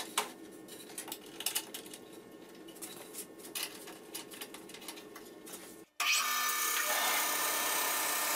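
Light clicks and knocks as a zebrawood board is set in place on a bandsaw sled. About six seconds in, the sound cuts off sharply and a band saw with a half-inch, 18-teeth-per-inch blade is heard running steadily, cutting through the zebrawood board.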